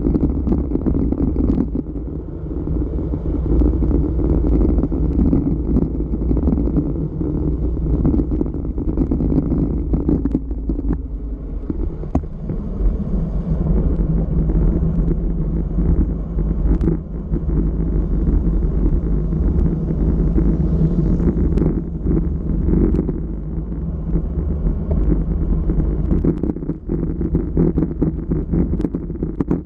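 Wind buffeting the microphone of a bike-mounted action camera on a fast descent: a loud, steady low rumble with a few scattered clicks.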